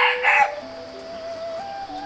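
A rooster crowing, the crow breaking off about half a second in, over background music with a slow melody of held notes.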